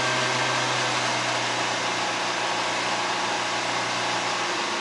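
Ford Transit Mk1 van driving, heard from inside the cab: a steady engine drone with a low hum under road and wind noise. The ignition points have just been reset to cure a stutter, and the engine is still running a little wonky.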